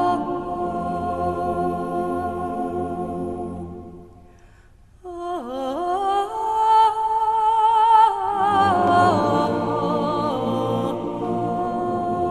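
Singing: long held notes with vibrato. About four seconds in, the sound fades to a brief pause, then a voice slides up into a new long note and the music carries on.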